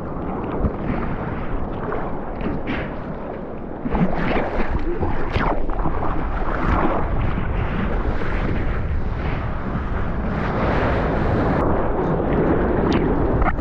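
Surf and rushing water with wind buffeting a GoPro's microphone: a steady rumbling wash of noise that grows louder about four seconds in.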